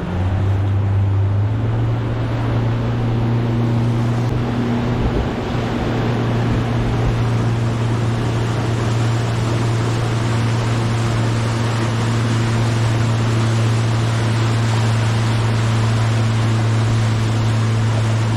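A 50 hp outboard motor running at steady cruising speed, pushing a small aluminium boat along, with the rush of water and wind over the hull. The engine note rises slightly about a second and a half in, then holds steady.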